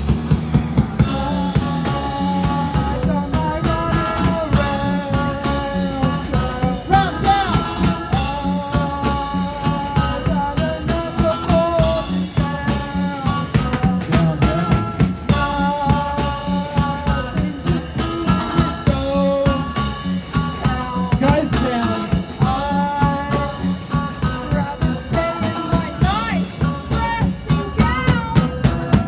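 A live rock band playing a song: electric guitars and drum kit, with steady held notes and an unbroken drum beat.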